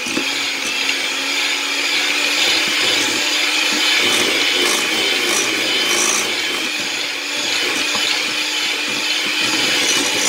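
Electric hand mixer running steadily, its beaters churning through cream cheese in a glass bowl, a constant motor hum with a scraping whir.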